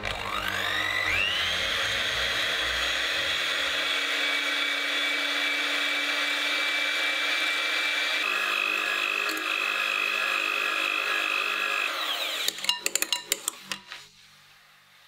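Electric hand mixer beating sponge-cake batter in a glass bowl: the motor whines up to speed in the first second and runs steadily, its pitch stepping up slightly about eight seconds in. It stops about two-thirds of the way through, followed by a quick run of clicks and knocks.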